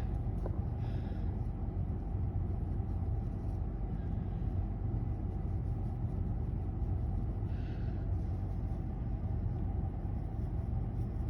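A steady low rumble, with a person breathing softly through the nose twice: about a second in and again around seven and a half seconds.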